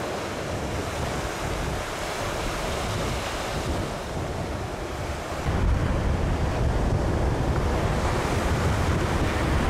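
Ocean surf breaking on the beach, with strong wind buffeting the microphone. The low wind rumble grows heavier and louder about halfway through.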